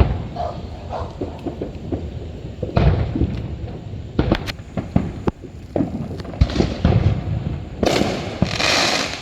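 Fireworks going off: a run of sharp bangs and deeper booms, with a burst of dense crackling near the end.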